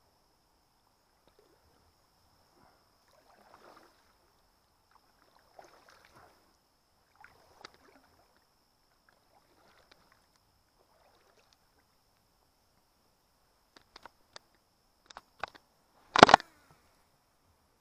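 Kayak paddle strokes, soft swishes in the water every couple of seconds, then a few sharp clicks and a single loud knock near the end.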